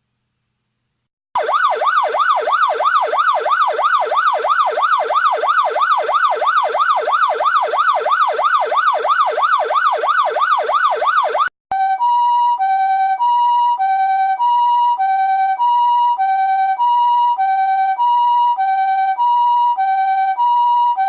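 PATLITE SAP-500E electronic vehicle siren. After about a second of silence it plays a fast warbling yelp, its pitch sweeping up and down several times a second. Around the middle it breaks briefly and switches to a two-tone hi-lo pattern, alternating between two steady notes.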